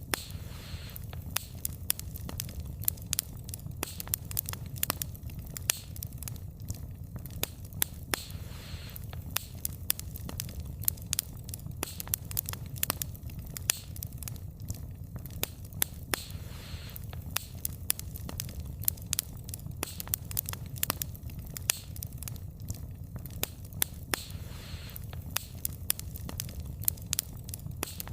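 Wood fire burning, with frequent irregular sharp crackles and pops of the burning logs over a steady low rumble of the flames. A soft hiss comes and goes about every eight seconds.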